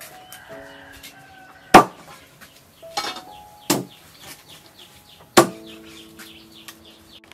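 A cleaver chopping fish on a thick wooden chopping block: four sharp chops, the first the loudest.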